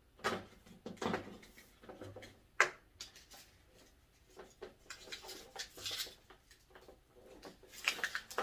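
A power cord being wound around the cord-wrap hooks on the back of a hard-plastic electric space heater: scattered rustling, light taps and clicks of cord against plastic, with one sharp click about two and a half seconds in.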